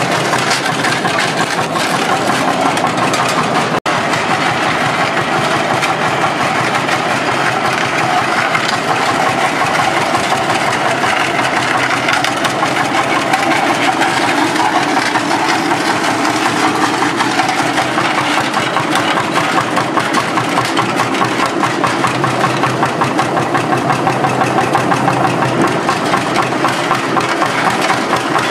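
1928 HSCS K35 tractor's single-cylinder hot-bulb engine running steadily with an even beat, the tractor moving slowly under its own power. The sound cuts out for an instant about four seconds in.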